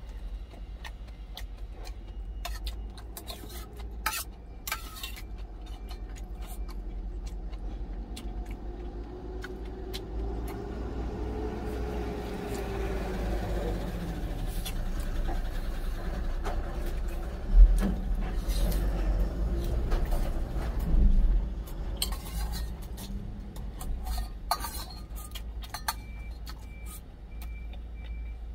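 A metal spoon and chopsticks clinking and scraping against a stainless-steel lunch tin, over a steady low vehicle rumble. A truck passes close by midway, its sound rising and then falling, and there are two louder knocks in the second half.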